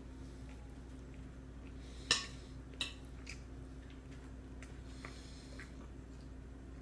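A toddler's spoon clinking and scraping in a bowl: two sharp clinks about two seconds in, less than a second apart, with a few faint ticks around them.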